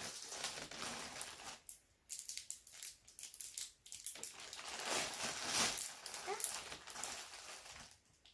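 Plastic links of a Wacky Track snap-and-click fidget toy clicking as they are twisted and bent, in a quick irregular series of clicks with handling noise between.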